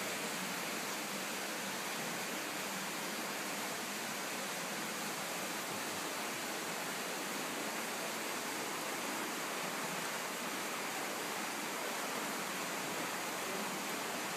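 Steady, even background hiss with no separate sounds in it, holding the same level throughout.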